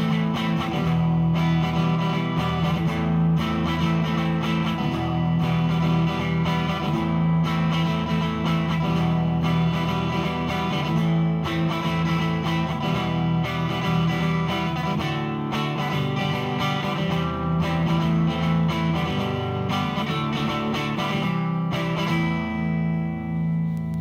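Electric guitar played through a Behringer V-AMP PRO amp-modelling processor on a clean preset, chords and notes ringing continuously.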